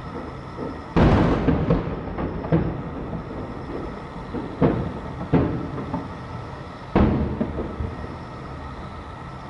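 Aerial firework shells bursting: a series of deep booms, each trailing off in a rolling echo. The loudest come about a second in and again about seven seconds in, with smaller bangs between.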